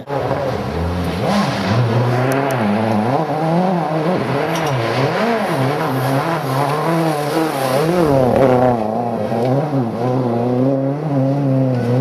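Ford Focus WRC rally car's turbocharged four-cylinder engine running hard on a gravel stage. Its pitch climbs and drops again and again as the throttle is worked.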